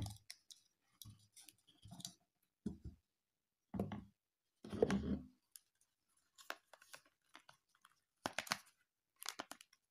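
Handling noise of a smartphone and a spring-loaded phone clamp: irregular plastic clicks and soft bumps as the phone is worked out of one holder and toward the mount of a handheld phone stabilizer, with a quick run of sharp clicks near the end.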